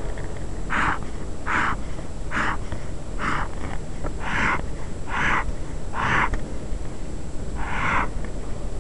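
A pen drawing straight lines on paper, eight scratchy strokes about a second apart, as a grid of lines is ruled out. A steady hiss runs underneath.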